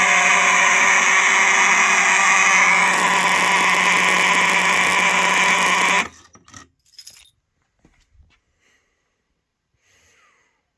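Simplex mechanical fire alarm horns sounding, a loud, steady buzzing blare with many overtones, which cuts off suddenly about six seconds in. A few faint clicks follow.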